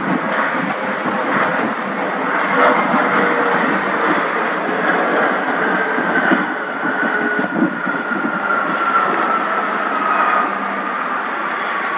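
Bombardier CRJ200 regional jet landing and rolling out, its twin rear-mounted General Electric CF34 turbofans giving a steady rushing noise. From about halfway on, a whine falls slowly in pitch as the engines wind down.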